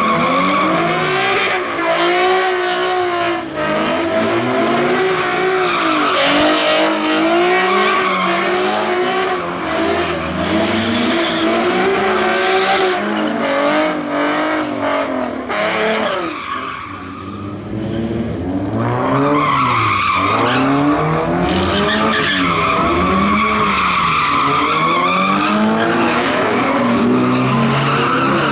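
A car's engine revving hard, rising and falling over and over, while its tyres screech in sustained spinning donuts. About two-thirds of the way through, the tyre screech briefly dies away, then picks back up.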